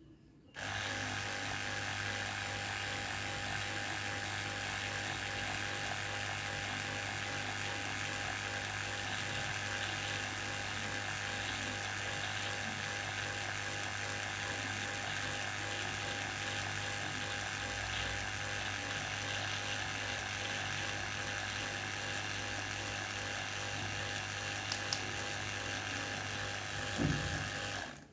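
Small electric diaphragm water pump running. It starts about half a second in, runs with a steady motor hum, and stops just before the end. The handheld meter reads up to 62.5 dBA.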